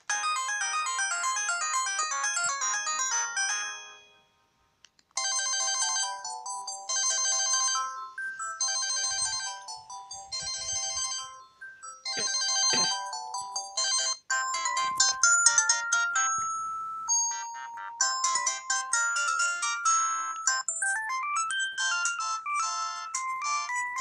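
Samsung SGH-X160 mobile phone playing its built-in ringtone melodies one after another as they are previewed. A short tune stops about four seconds in, and after a pause of about a second further tunes of quick electronic notes follow.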